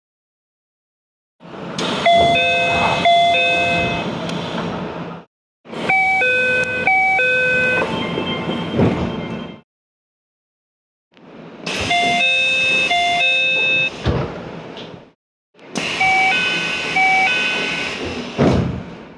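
Four short recordings of Keio train door chimes, cut one after another with silence between. Each is a brief phrase of a few chime notes, repeated, over the rumble of the train car's cabin, with a sharp knock near the end of the last two.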